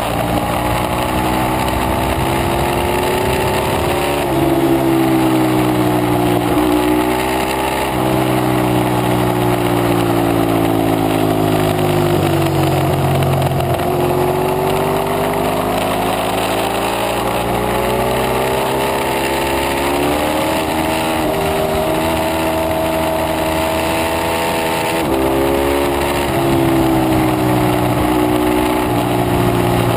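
Ducati 848 Evo's L-twin engine under hard riding, its pitch climbing and falling over and over: a long fall midway as it slows, then climbs broken by sudden drops at gear changes. A steady rush of wind noise lies under it.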